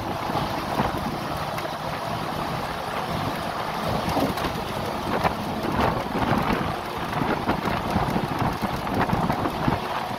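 Wind rushing over the microphone of a phone held at a moving vehicle's window, together with the vehicle's road noise: a steady rushing noise with irregular crackling gusts.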